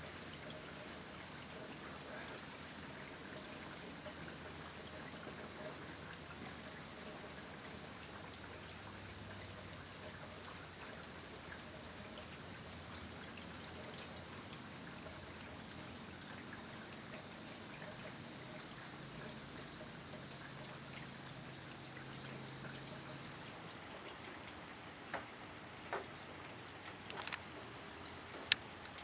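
Steady, fairly light rain falling, with a few sharp drip taps near the end.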